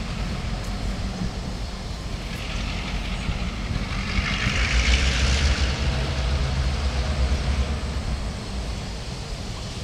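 CN GP9RM diesel locomotives rumbling in the distance as they pull a slow freight toward the listener, the low engine drone growing stronger past the middle. A broad rush of noise, likely wind through the nearby leaves, swells and fades around the middle.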